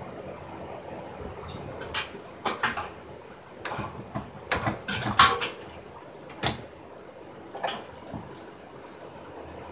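Irregular knocks and clicks of parts being handled and fitted by hand around a car's AC condenser and transmission cooler at the front of the engine bay, the loudest a little past the middle.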